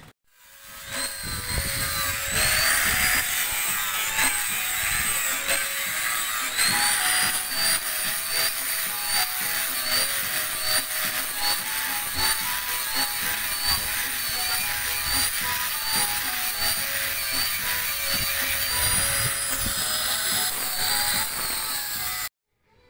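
Electric angle grinder with an abrasive disc grinding a wooden boat frame rib. Its high steady whine rises in pitch a few times as the load comes off, and it cuts off suddenly near the end. Background music with a simple melody plays over it.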